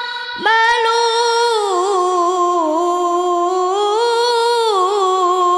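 A child reciting the Quran in melodic tilawah style, holding one long drawn-out note that dips and rises in ornamented turns, after a short breath near the start.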